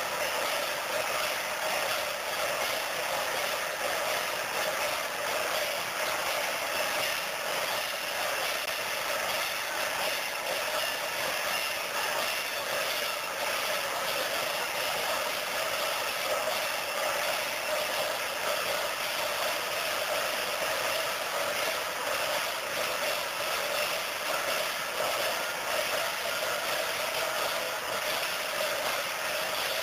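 Steady din of a large, densely packed crowd: many voices and clatter blended into one even, unbroken noise with no words standing out.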